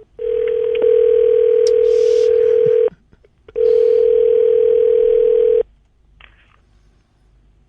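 Telephone ringback tone heard over the phone line: two long, steady, low single-pitch tones, each about two to three seconds, with a short gap between. It shows the call to the hotel room is ringing and not yet answered.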